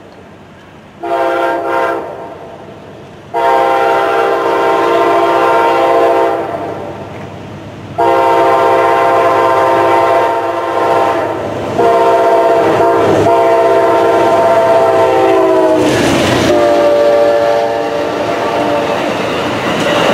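Amtrak passenger train's locomotive horn sounding for a grade crossing: a short blast, then three long blasts of the chord. About 16 s in the locomotive passes in a loud rush and the horn's pitch drops, followed by the bilevel cars rolling past.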